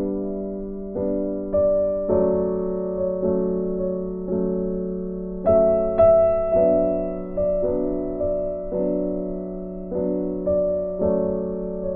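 Background piano music: notes and chords struck about once a second, each fading away.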